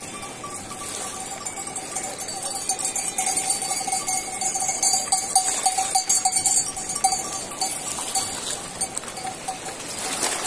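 Livestock bells on a walking flock of sheep and goats, clanking continuously and unevenly as the animals move.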